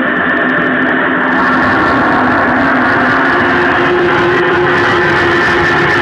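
Dense, steady drone of many held tones over a hiss, a synthesized sound presented as the sound of a star. About a second in the hiss brightens, and a new low steady tone joins a few seconds in.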